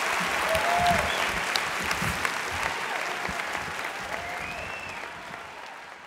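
Large audience applauding, many on their feet, with a few voices calling out over the clapping; the applause slowly dies away toward the end.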